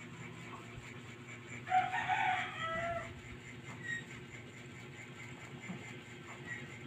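A rooster crowing once, a little under two seconds in, for just over a second, its call falling in pitch at the end. A steady low hum runs underneath.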